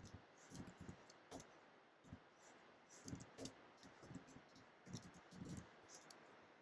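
Faint computer-keyboard typing: irregular key taps, some in short quick runs.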